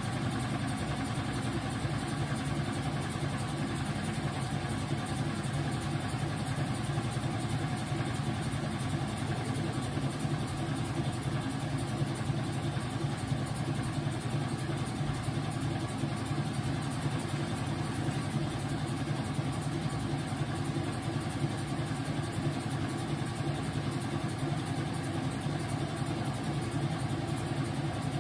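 Whirlpool top-loading washing machine running steadily with a low, even motor hum and no breaks.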